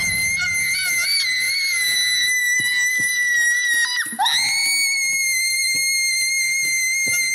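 A woman screaming at full force: one long, shrill scream held steady for about four seconds, a short break, then a second scream that rises in pitch and is held again.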